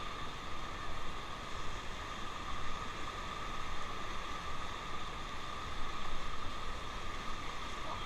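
Steady rushing of fast, choppy river water around an inflatable raft.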